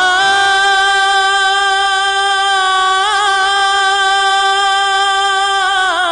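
A solo voice holding one long, high chanted note of an Islamic devotional song, with brief ornamental wavers about three seconds in and again near the end, where the pitch starts to fall.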